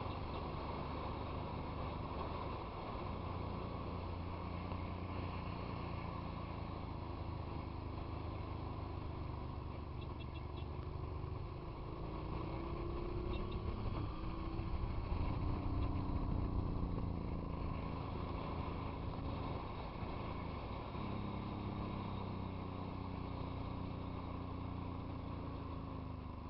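Motorcycle engine running on the road, its pitch stepping up and down with throttle and gear changes, loudest about halfway through, over a rush of road and wind noise.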